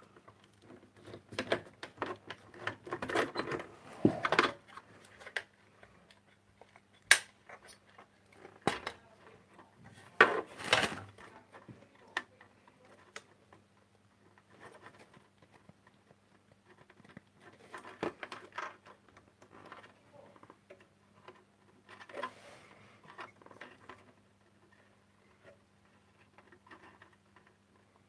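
Handling noises of small hard objects being picked up and set down: scattered clicks, taps and light clatters. They are busiest in the first few seconds, with a sharp click about seven seconds in and another cluster around ten seconds, then sparser, over a faint steady hum.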